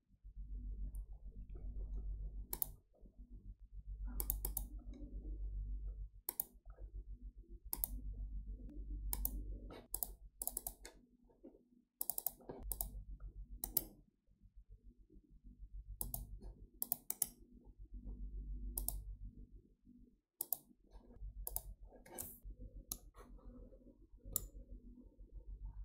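Computer mouse clicking: scattered single and double clicks, irregularly spaced, over a low hum that comes and goes.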